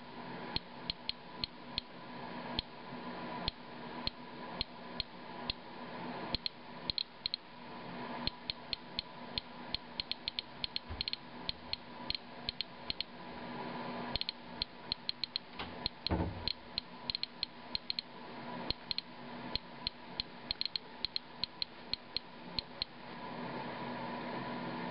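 Inspector Alert Geiger counter, a pancake Geiger-Müller tube, clicking irregularly at about four clicks a second as it counts radioactivity in a rainwater sample. It reads about 220 to 250 counts per minute, roughly six times the background.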